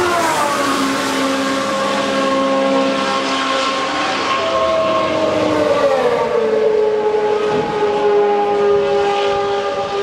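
Historic Formula One racing car engines running at high revs as cars go by, a strong multi-toned engine note whose pitch drops sharply just at the start and again about six seconds in, then holds steady.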